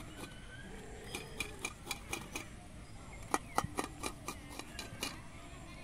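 Raw green mango being worked with a metal kitchen tool over a steel bowl: a run of short, irregular clicks and scrapes, coming more thickly from about a second in and again in the second half.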